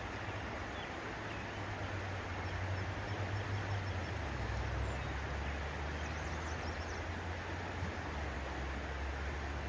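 Outdoor background noise: a steady hiss with a low hum underneath that drops in pitch about four seconds in, and a few faint high chirps near the middle.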